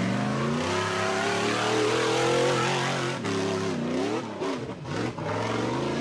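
Tube-chassis rock buggy's engine revving hard under full throttle. It climbs sharply at the start and holds high, then drops and swoops back up about three to four seconds in before holding high again.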